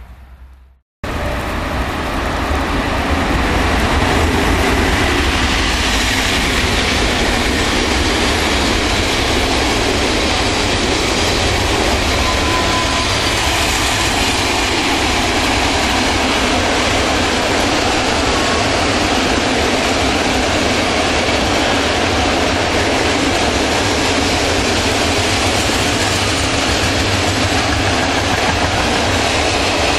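Train passing close by at speed: a loud, steady rush of wheels on the rails. It starts abruptly about a second in and builds over the next few seconds.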